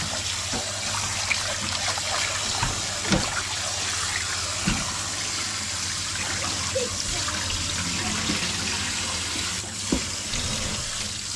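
Kitchen tap running into a stainless steel bowl of small fish while hands swish and rub the fish in the water to rinse them, with a few light knocks against the bowl.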